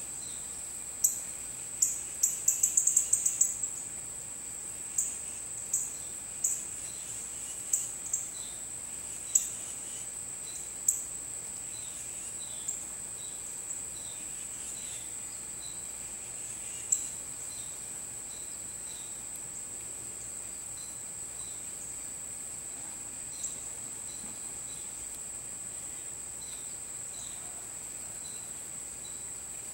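Insects singing a steady high-pitched trill. Over it come loud, sharp, short chirps: a quick run of them about two to three seconds in, several more over the next ten seconds, then only a few scattered ones.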